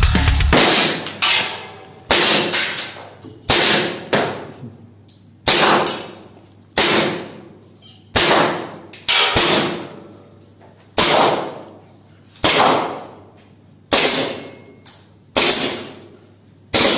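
KWC Beretta M92 (92A1) CO2 blowback airsoft pistol firing single shots, about a dozen, one every second or so. Each is a sharp crack that trails off in room echo.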